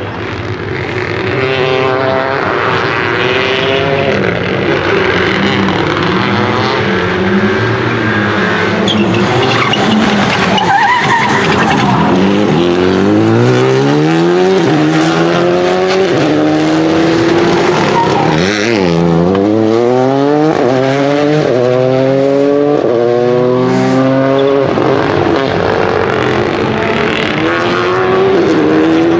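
Rally car engine revving hard through the gears, its pitch climbing and dropping sharply with each gear change and lift, dipping low about two-thirds of the way through before accelerating again, with tyres skidding on the track.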